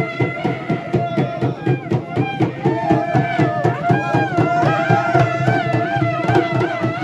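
Traditional South Indian festival music: fast, dense drumming under a wavering, ornamented melody.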